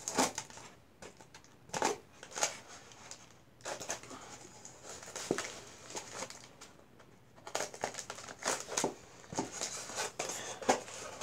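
Irregular crinkling and rustling of packaging wrap as it is cut and worked loose with a pocket knife, with scattered small clicks and scrapes against a styrofoam box.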